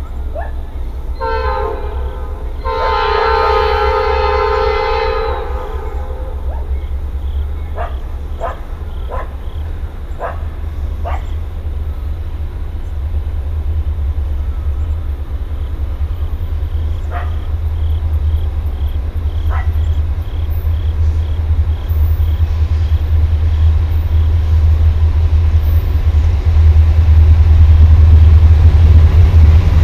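Norfolk Southern diesel freight locomotive approaching, its air horn sounding a short blast and then a long one early on. A steady low engine rumble grows louder as the train draws nearer.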